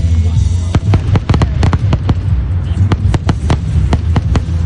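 Fireworks display going off: a rapid, irregular series of sharp bangs, several a second, over a continuous low rumble.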